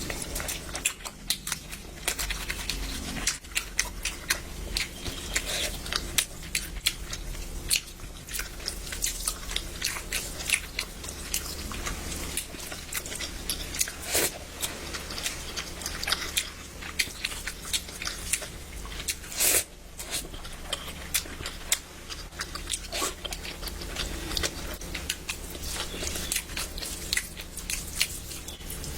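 Close-up chewing and mouth sounds of a person eating spicy mutton curry, mutton kofta and egg curry, with many irregular sharp clicks and smacks.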